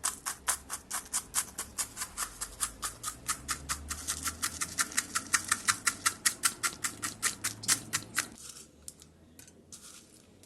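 Rapid, even tapping of a hard utensil breaking up crystals, about five or six sharp taps a second. It stops about eight seconds in.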